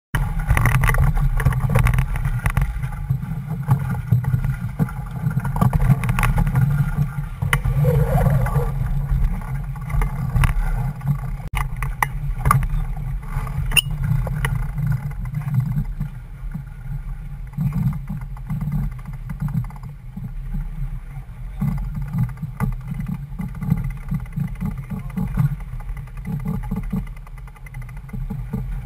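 Wind buffeting the microphone and water rushing along the hull of a C&C Corvette 31 sailboat under way in a chop, as an uneven low rumble. There is a brief rustle about eight seconds in and a few sharp clicks a little later, as the boat tacks.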